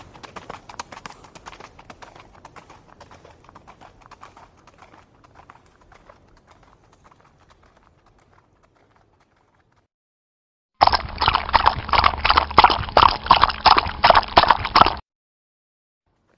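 A horse's hooves clip-clopping on hard ground, fading away over the first several seconds. After a short silence, a louder run of hoofbeats, several a second, cuts in and stops abruptly.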